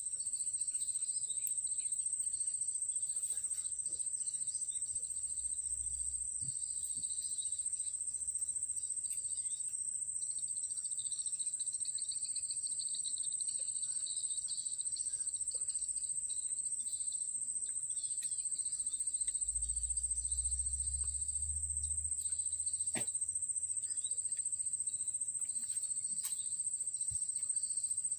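Insects calling in a steady, high-pitched drone, with a second, lower pulsing trill that swells in the middle. One sharp click sounds once near the end.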